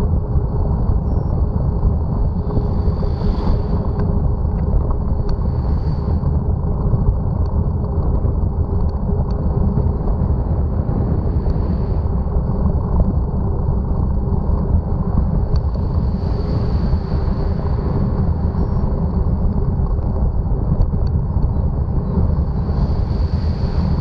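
Wind rumbling on the microphone of a camera mounted on a moving bicycle. Motor vehicles pass on the road alongside several times, the last a van passing close by near the end.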